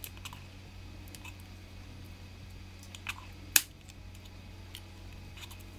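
Fingernails picking and scratching at a roll of washi tape while trying to open its wrapping: scattered light clicks, with two sharper clicks a little after three seconds in.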